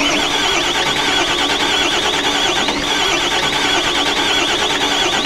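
Volvo wheeled backhoe's diesel engine being cranked on the starter motor, a steady whirring that does not catch and run: the engine cranks but will not start. It starts and cuts off abruptly.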